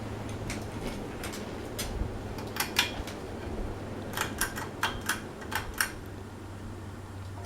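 Light sharp clicks and taps over a steady low hum, with a quick run of clicks about four to six seconds in.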